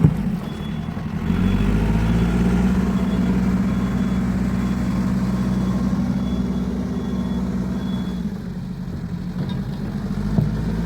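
Caterpillar 416E backhoe loader's four-cylinder diesel engine running while working. It picks up about a second in, holds steady, and eases off near the end, with a sharp knock at the start and a lighter one near the end.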